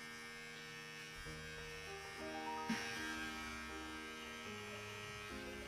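Soft background music of held notes that step to a new pitch every second or so.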